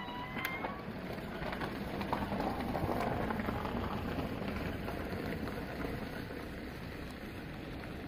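Hiroshima Electric Railway tram running on snow-covered track, a steady noisy rumble that swells about three seconds in. A brief high whine sounds at the very start.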